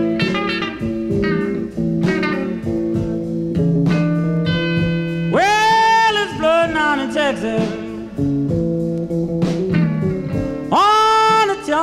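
Blues record playing from vinyl in mono: a wordless stretch of plucked guitar over a steady bass line, with long bent lead notes about halfway through and again near the end.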